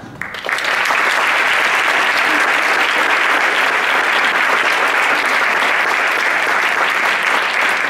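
Audience applauding steadily, a dense patter of many hands clapping that starts about half a second in.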